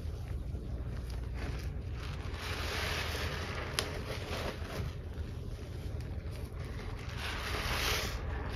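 A kitchen sponge being squeezed and kneaded by gloved hands in thick, foamy cleaning-powder paste: wet squelching and squishing that swells and fades with each squeeze, with one sharp click a little before halfway.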